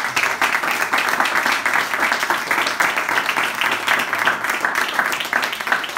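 A roomful of people applauding, many hands clapping together steadily and loudly. The applause greets a couple just pronounced husband and wife.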